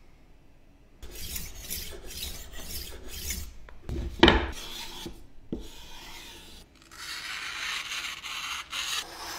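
A rolling knife sharpener's disc is rolled along a knife blade in a quick run of rasping strokes, then a loud knock about four seconds in. Near the end, a steady hiss as the sharpened blade slices through a sheet of paper.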